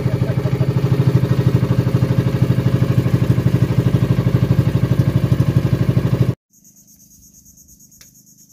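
Outrigger boat's inboard engine running steadily with a fast, even pulse. About six seconds in it cuts off abruptly, leaving quiet with insects shrilling in a high, steady tone.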